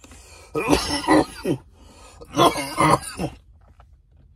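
A man coughing hard in two bouts of about a second each, harsh and throaty, the kind of coughing that follows a hit of smoke.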